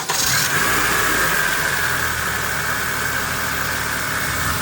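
Honda engine idling just after starting, with a steady high whine over it from the power steering pump, which is still working air out of the fluid after its feed-hose O-ring was replaced.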